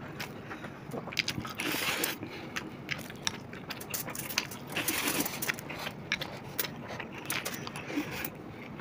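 Close-up eating sounds of two people working through chicken biryani: chewing and wet mouth clicks, with many short, sharp clicks throughout and a brief noisy rush about two seconds in and again near five seconds.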